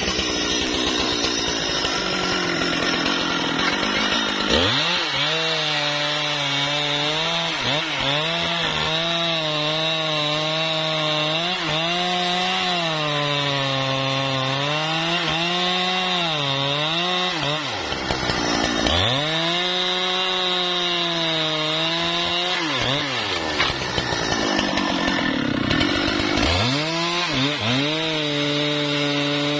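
Husqvarna 395 XP two-stroke chainsaw at full throttle, cutting into a thick trunk. Its pitch drops and wavers as the chain is loaded in the cut, and it climbs twice as the bar eases off before it settles back into the cut.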